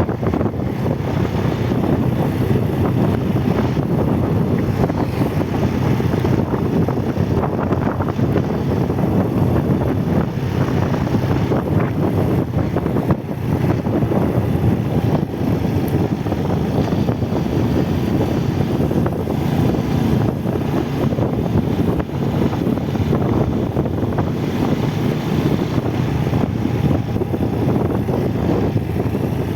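Motorcycle riding at a steady pace, its engine running under heavy wind buffeting on the microphone.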